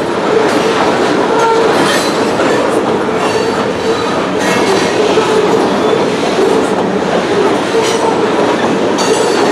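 Loaded covered hopper cars of a freight grain train rolling steadily past at close range, wheels clacking over the rails, with a faint wheel squeal coming and going.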